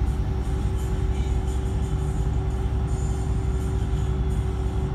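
Scania K124 coach's six-cylinder diesel engine running, heard from inside the passenger cabin: a steady low rumble with a constant hum over it.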